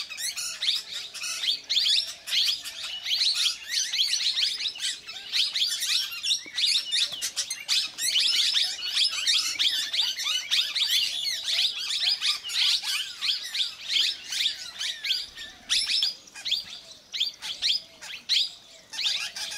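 Plum-headed parakeets squabbling, giving a dense, rapid stream of short high-pitched chirping calls that thins out slightly near the end.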